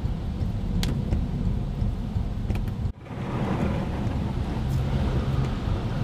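Low road and engine rumble inside a moving car, as picked up by a windshield dashcam, with a few faint ticks. The sound drops out for a moment about three seconds in, then resumes.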